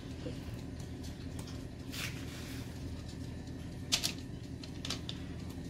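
A spatula and mixing bowl giving a few short scrapes and clicks as thick cake batter is worked out of the bowl into a cake tin: one scrape about two seconds in, sharp clicks near four and five seconds. A steady low hum runs underneath.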